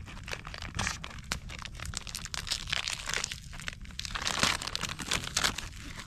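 Crunching, crinkling rustle of dry material being handled, dense with small sharp cracks; loudest about four and a half seconds in.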